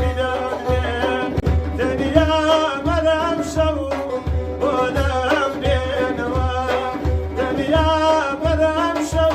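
Middle Eastern folk-style music: a wavering melodic line, likely sung, over a steady low drum beat.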